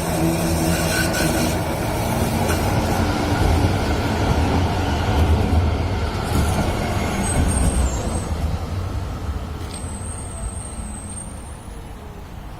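VBZ Tram 2000 tram running past on its rails: a low rumble with some motor hum that swells and then fades away as it recedes. Two brief high-pitched squeals come near the end.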